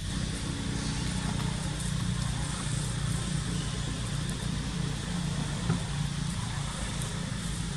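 A steady, low engine hum.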